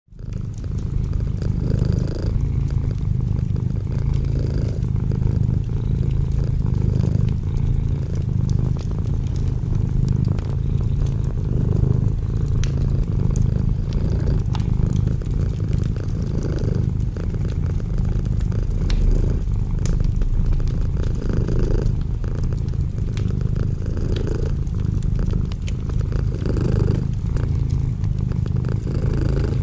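Domestic cat purring steadily up close, the purr swelling and easing with each breath about every two seconds.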